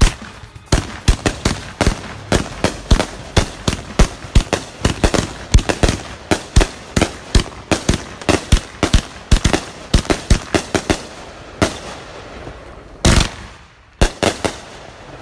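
Consumer firework cake firing a rapid string of shots and bursts, several sharp bangs a second for about ten seconds. Near the end comes a single longer blast, then two or three last bangs.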